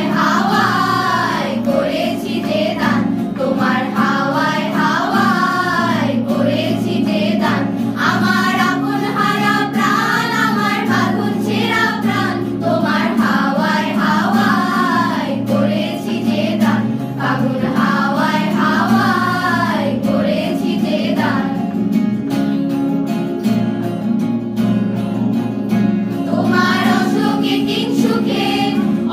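A choir of young singers, mostly girls, singing a Bengali song together, accompanied by a harmonium and two acoustic guitars. About three quarters of the way through the voices drop out for a few seconds, leaving the harmonium and guitars, then come back in.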